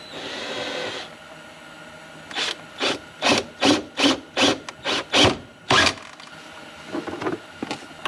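Cordless drill making a small hole through the hot tub's plastic frame. It runs steadily for about a second, then comes in about nine short bursts, two or three a second, as the bit works through the plastic.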